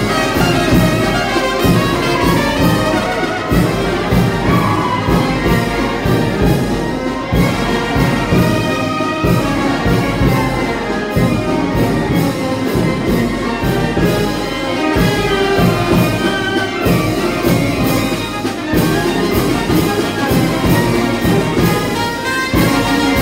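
Oaxacan brass band (banda filarmónica) playing a son-and-jarabe dance tune live: clarinets, trumpets and trombones over a sousaphone bass line, with a steady drum beat.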